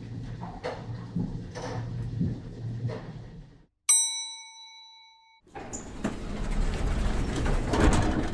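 Elevator sound effect: the car's low hum with light clicks runs, then cuts off, and a single elevator arrival chime rings and fades. The doors then slide open into a rising wash of noise.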